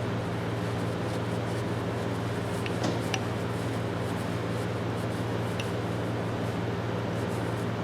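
Steady machine hum with a constant hiss, with a few faint light clicks about three seconds in and again near five and a half seconds.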